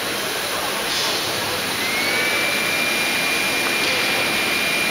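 Steady machine noise from table-top CNC milling machines running in a hall, with a high whine that rises slightly about two seconds in and then holds steady.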